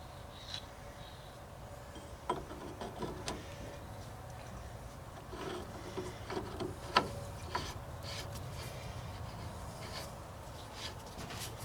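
Scattered clicks, knocks and rubbing of parts being handled during the cylinder reassembly, with a sharp knock about 2 s in and the loudest about 7 s in, over a steady low hum.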